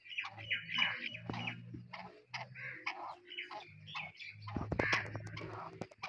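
Black francolin giving a rapid run of short, harsh squawking calls, with a low hum that comes and goes underneath.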